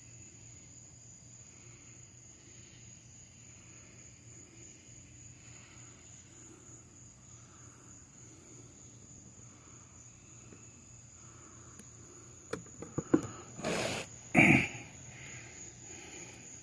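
Steady high-pitched insect trill, fairly quiet and unbroken. About three-quarters of the way through come a few sharp clicks and two loud, brief rustling bursts of handling noise.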